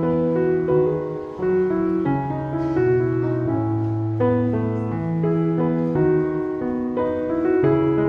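Piano music with a slow melody over long held bass notes.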